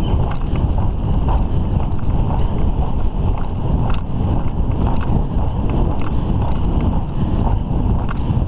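Wind rushing over the microphone of a camera carried on a moving horse, with the horse's hoofbeats on the sand track underneath.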